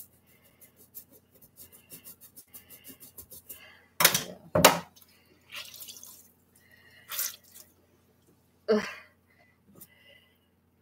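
Rubbing at the painted hair of a vinyl reborn doll head, quick short strokes several a second, then water splashing in a stainless steel sink in a few short gushes, the first two loud ones about four seconds in.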